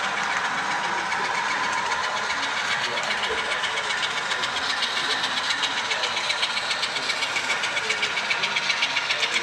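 HO-scale model tank cars rolling past on the layout track: a steady rolling noise with rapid, regular clicking of the wheels over the rail joints, growing more distinct in the second half.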